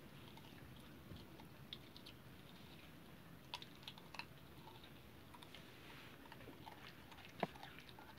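Puppy chewing and biting on a piece of cucumber: faint, irregular clicks, with a few sharper ones about halfway through and one near the end.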